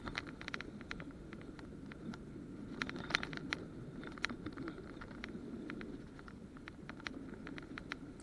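Rod and reel being worked while playing a hooked fish: scattered sharp clicks and handling knocks over a steady low rumble.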